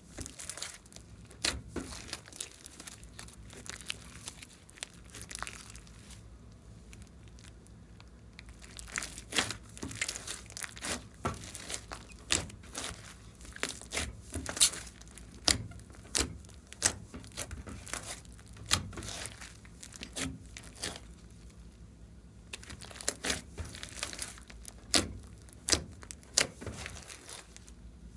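Slime being squished and stretched by hand: irregular sticky clicks and pops, with quieter stretches about six seconds in and again past twenty seconds.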